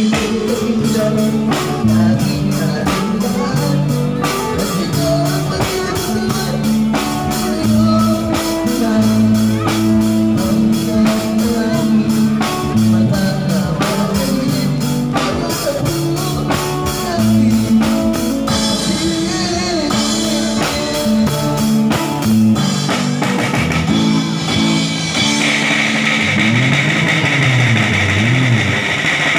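Acoustic drum kit played live along with a rock backing track: a fast, steady beat on drums and cymbals over guitar and bass. The drumming grows sparser about two-thirds of the way through.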